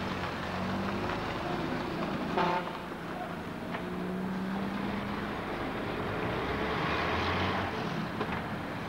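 A saloon car's engine running as the car drives slowly past close by, growing louder about seven seconds in. There is a brief toot about two and a half seconds in.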